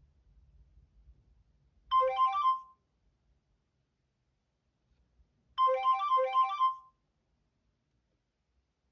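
Nokia E72 alert tone: a short phrase of quick, bright electronic notes, played twice about three and a half seconds apart.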